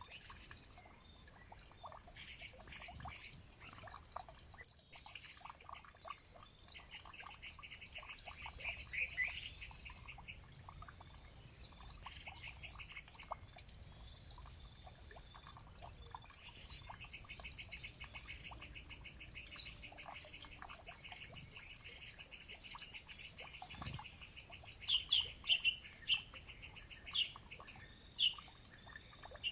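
Small wild birds chirping and singing, with long rapid trills and short high chirps overlapping. A run of louder sharp chirps comes near the end.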